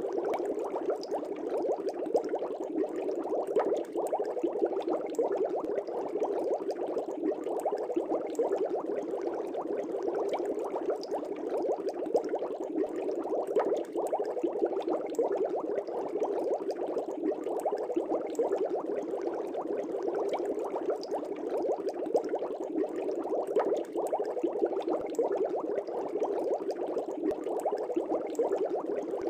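Air bubbles streaming up through aquarium water, a steady dense bubbling made of many small pops.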